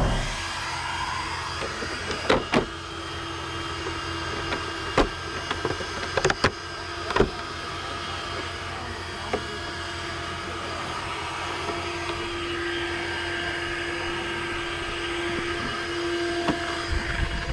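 Steady whine of a small electric motor close by, with a dozen or so sharp clicks and knocks scattered through as the RC car is handled; one tone in the whine grows louder toward the end.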